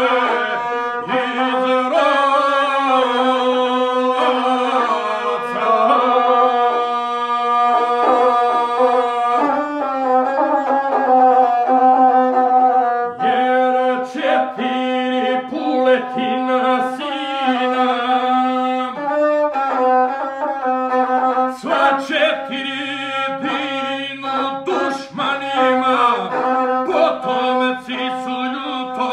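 A gusle, the single-string bowed folk fiddle, played with its bow while a man sings over it in the Serbian epic style.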